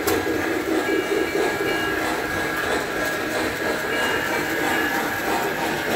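O-gauge three-rail model train running on tubular steel track: a steady rolling rumble with a faint, thin motor whine over it.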